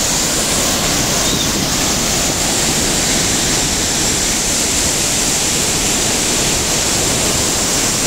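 Loud, steady rushing of water from a waterfall plunging into its pool and the whitewater stream running below it, unchanging throughout.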